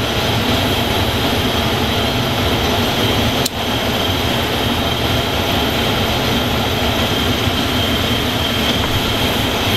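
Small torch flame burning with a steady hiss, heating a battery-cable end for soldering; one sharp click about three and a half seconds in.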